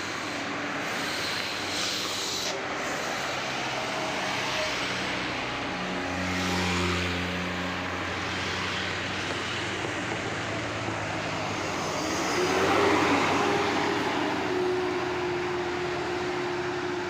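Traffic climbing a hill road: heavy bus engines running under load as vehicles pass, with road noise throughout. It is loudest twice, as vehicles go by.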